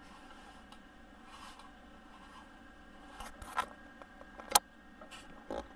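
Faint rustling, then a few short plastic clicks and taps from handling a 1/6-scale action figure and its small accessories, the sharpest about four and a half seconds in.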